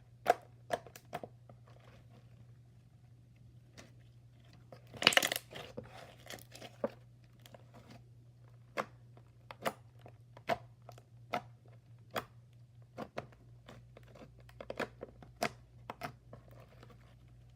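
Slime being squished and poked close to the microphone, giving scattered sharp clicks and pops, with a denser crackling stretch about five seconds in.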